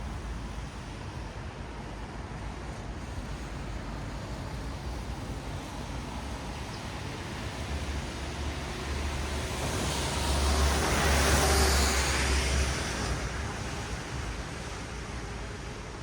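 Traffic on a wet city road: a steady hiss of tyres on wet asphalt, with one vehicle passing close, its wet tyre hiss and engine rumble swelling about ten seconds in and fading a few seconds later.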